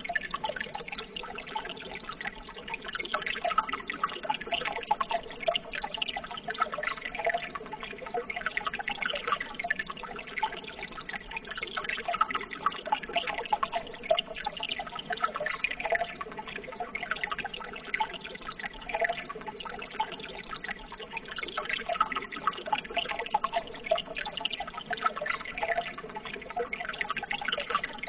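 Steady running water, a dense trickling and splashing of many small droplets that goes on without a break.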